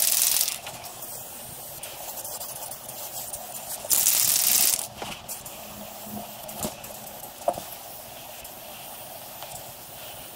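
Aerosol spray paint can spraying in two bursts: one that stops about half a second in, and another of about a second around four seconds in.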